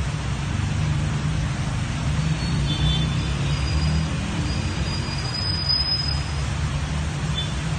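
Steady rushing noise of flash-flood water and heavy rain, with a deep rumble underneath.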